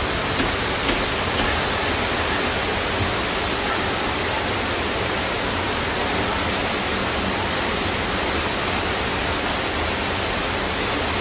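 Steady rush of flash-flood water pouring through a street, an even, unbroken noise.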